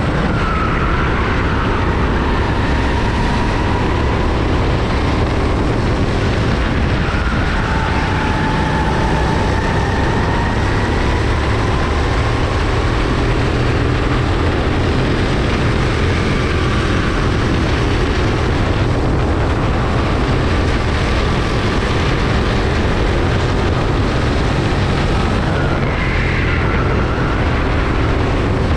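Racing kart engines running hard at close range, their pitch rising and falling every few seconds as the karts speed up and brake through the corners, over a steady low rumble.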